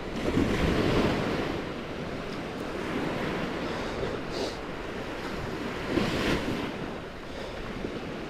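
Small surf breaking and washing up a sandy beach, with wind on the microphone. The wash swells loudest about half a second to a second in and again about six seconds in.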